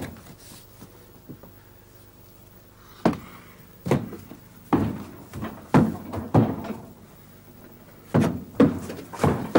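A horse's hooves knocking on the wooden loading ramp and floor of a horse float as it steps up and into it: heavy, irregular thuds that begin about three seconds in and come in clusters.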